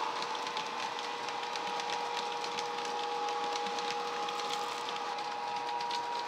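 Hornby Class 92 model electric locomotive running under DCC sound: the decoder's electric traction whine plays through its speaker as a steady set of tones, with light scattered clicking of the wheels on the model track.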